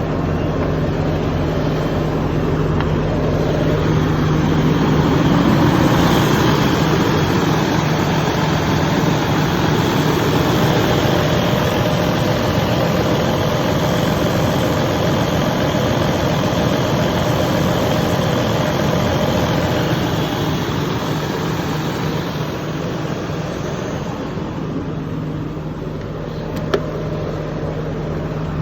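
Detroit Diesel DD15 six-cylinder diesel engine running steadily at a raised idle of about 900 RPM on cruise control. It runs smoothly, with no pinging: the cracked injector that was throwing compression back into the fuel return line has been replaced. It gets louder through the middle, then eases back, with one sharp click near the end.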